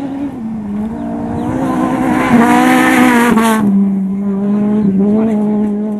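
Rally car on a gravel stage approaching under power and passing close by. The engine note grows louder and climbs, with a hiss of tyres and gravel as the car goes past at about three and a half seconds. The pitch then drops suddenly and the engine carries on at a steady lower note as the car moves away.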